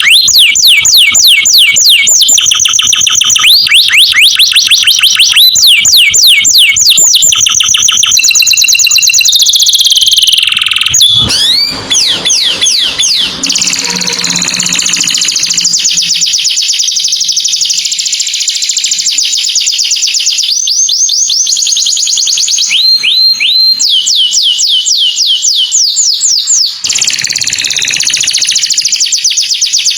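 Canary singing a loud, continuous song of rapid trills. Each phrase is a fast run of identical rising or falling notes, and the phrase changes every second or two.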